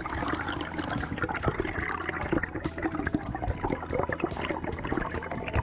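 Air bubbles rising past an underwater camera, heard as a continuous dense bubbling and crackling through the water.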